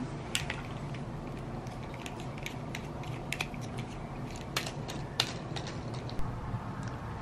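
Crinkly plastic treat bag being handled and pulled open, giving scattered sharp crackles and clicks over a low steady hum.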